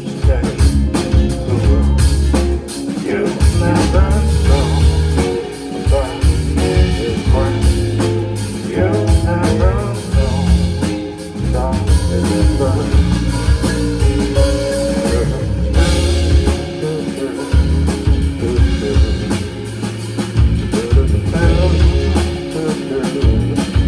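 Live band playing an instrumental passage: guitar, bass and drum kit, with a steady drum beat and a heavy bass line.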